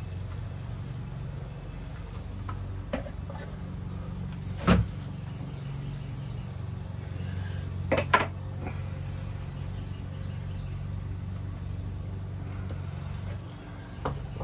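A steady low hum with a few short knocks and clicks of handling against the wooden cabinet front, the loudest about 5 and 8 seconds in.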